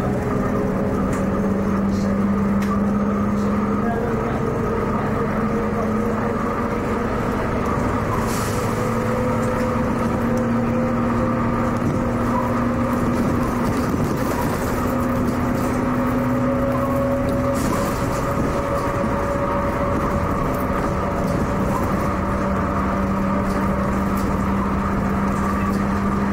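MCW Metrobus double-decker with a Cummins engine running under way, heard from the upper deck: a steady engine drone with a whine that climbs slowly in pitch over most of the stretch as the bus holds and gains speed.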